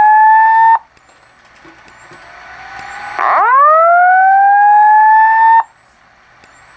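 Wheelock fire alarm speaker sounding the whoop evacuation tone that opens the Simplex voice-evacuation message: a tone sweeping upward in pitch for about two and a half seconds, then cutting off sharply. One sweep ends just under a second in, and a second full sweep follows after a pause of about two seconds.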